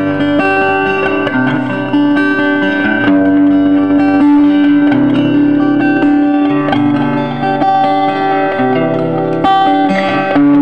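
Instrumental background music led by guitar, held notes and chords changing every second or two.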